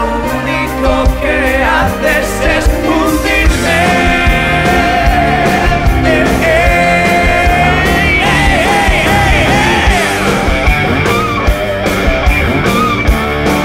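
Rock song with drums, bass guitar and male voices singing, including a long held note in the middle.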